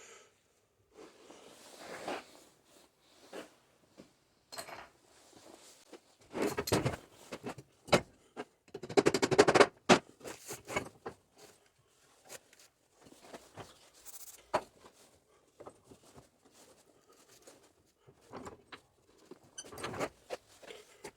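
Tools and metal parts being handled: irregular knocks, clicks and rattles, with a dense run of rapid clicks about nine seconds in.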